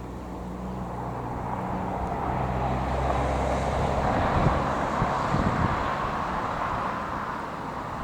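Jet aircraft engine noise swelling to a peak about halfway through and then easing off as the aircraft passes, over a steady low hum, with wind buffeting the microphone.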